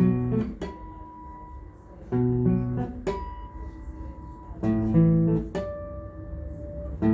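Acoustic guitar playing an instrumental passage of the song with no singing: chords struck every second or so, each left to ring and fade before the next.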